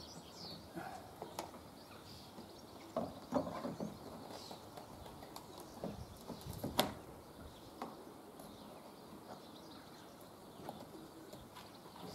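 Faint, scattered knocks and taps from a PVC cladding board being handled and fitted against a roof edge, the sharpest about seven seconds in. Birds call faintly in the background.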